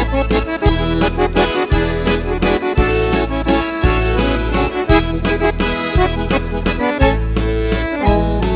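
Instrumental passage of a sertanejo song led by a piano accordion, over low bass notes that fall about once a second.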